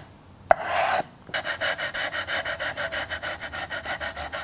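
Hand sanding block rubbed along the top edge of a small wooden box to put a light chamfer on it: one short stroke with a tap as the block meets the wood, then a quick run of short back-and-forth strokes, about six a second.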